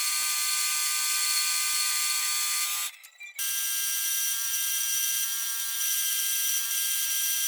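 A power tool running steadily with a high whine of several steady tones over a hiss, in edited stretches, with a brief drop-out about three seconds in.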